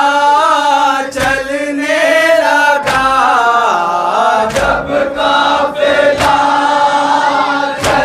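A group of men chant an Urdu noha (a Muharram lament) in unison behind a lead voice. Five sharp chest-beating slaps of matam come in time with it, about one every 1.7 seconds.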